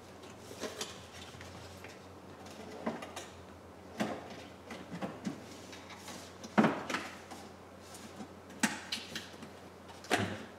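Scattered knocks and clicks of small objects being handled and set down, about a dozen in all, the loudest about six and a half seconds in, over a faint steady hum.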